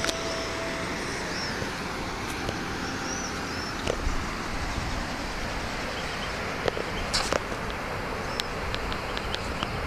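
Steady rushing outdoor noise with wind buffeting the microphone. A few short, high bird chirps come about three seconds in and again near the end, along with small handling clicks.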